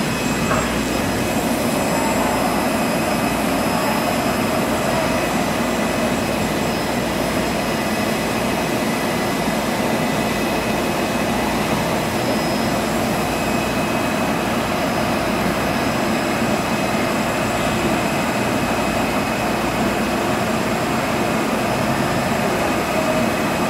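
A CNC tool and cutter grinder cell running: a steady machine hum and hiss, with several faint high whines held at an even pitch.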